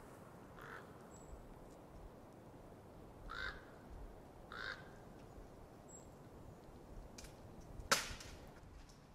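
A crow cawing in the background: three short caws spread over several seconds. A single sharp click near the end is the loudest sound.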